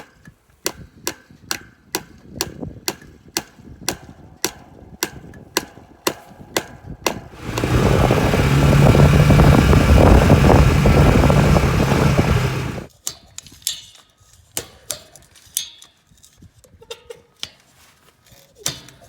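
Fence-mending work: sharp, evenly spaced metallic strikes, about three a second, for roughly seven seconds. Then a loud steady rush with a low hum comes in suddenly, lasts about five seconds and cuts off. Scattered clicks and knocks follow.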